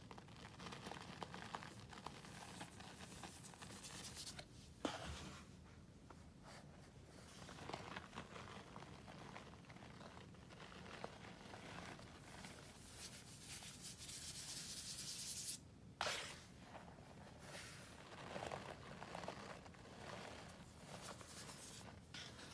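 Powdered scouring cleanser squeezed, crumbled and rubbed between hands in a plastic tub: faint soft scratching and crunching as clumps break and fall back into the powder. A sharp spike about five seconds in, and a steady hiss that stops suddenly about two-thirds of the way through.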